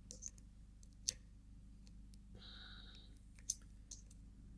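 Faint, scattered metallic clicks of a lock pick and tension wrench working in the core of a circular-keyway lock, with a brief scraping sound about two and a half seconds in.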